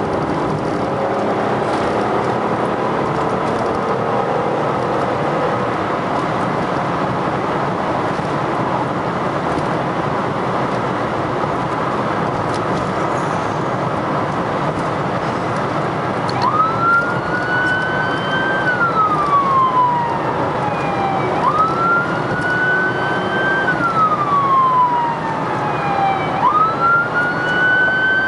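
Steady road and engine noise inside a moving emergency-response vehicle. About halfway through an emergency siren starts wailing, each cycle climbing quickly, holding, then falling slowly, about once every five seconds, three times.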